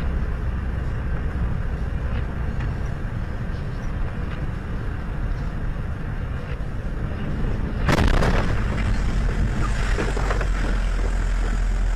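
Steady road and wind rumble of a vehicle driving a snow-covered highway, heard from inside the vehicle. About eight seconds in, a sudden louder rushing noise sets in and holds as the vehicle veers across the road.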